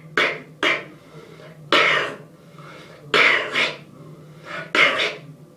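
Beatboxed inward snare: a 'K' pulled in through the mouth with the tongue against the gums, giving sharp hissy snare hits. Two short ones come near the start, then four longer, breathier ones.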